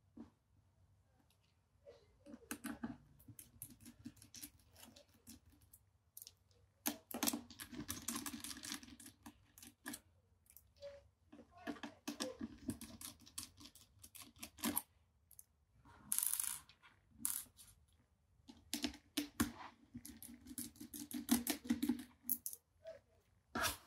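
Small screwdriver taking out the screws that hold a laptop's screen: scattered clicks, scrapes and light taps of the tool and screws on the laptop, coming in short bursts with pauses between them.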